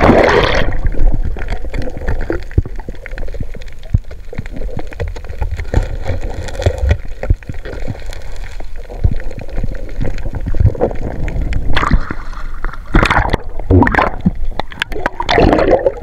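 Shallow sea water sloshing and gurgling close to the microphone, with scattered knocks and clicks and louder splashing in the last few seconds.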